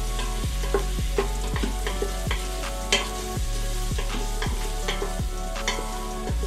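Diced onion sizzling as it fries in an Instant Pot's stainless steel inner pot, stirred with a wooden spoon that scrapes and knocks against the pot about twice a second.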